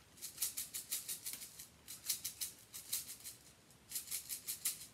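Sprinkles rattling inside a small shaker bottle as it is shaken over a cookie. There are three runs of quick shakes, several a second, with short pauses between them.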